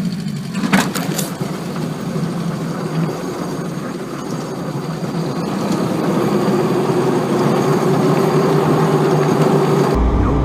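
Dodge pickup truck engine running steadily under load while towing, its note gradually rising and growing louder through the second half. There are a few sharp clicks about a second in.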